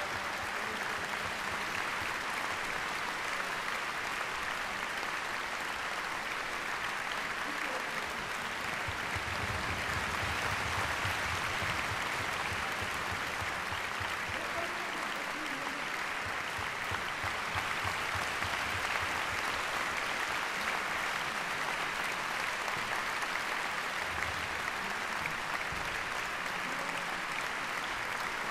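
A large concert-hall audience applauding steadily.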